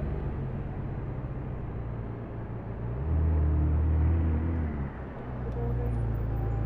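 Car engine running at low speed with a deep, steady rumble. It grows louder about three seconds in for nearly two seconds, then drops back.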